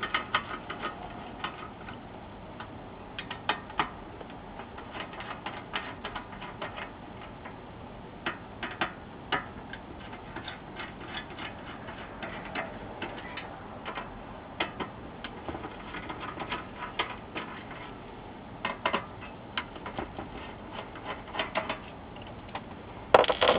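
Screwdriver turning screws out of a metal-framed monitor power supply board: irregular small clicks and ticks of metal on metal, with a louder clatter near the end.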